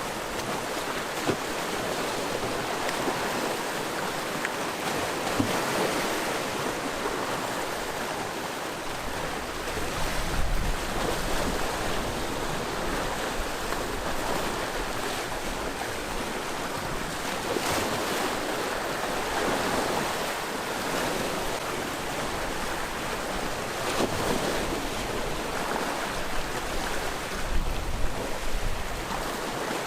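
Sea waves breaking and washing on the shore, a continuous rush that swells every several seconds as each wave comes in.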